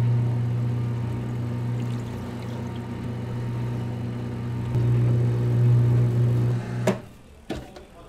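A machine motor running with a steady low hum, cutting off suddenly about seven seconds in, followed by a couple of sharp clicks.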